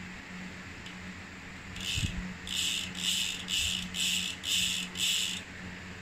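Shimano freehub ratcheting as the 8-speed cassette is turned backwards by hand, in about seven short clicking bursts, roughly two a second. There is a low knock about two seconds in.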